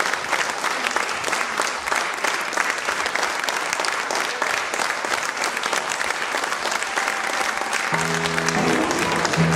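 Audience applauding, a dense steady patter of many hands clapping. About eight seconds in, music with held low notes comes in under the clapping.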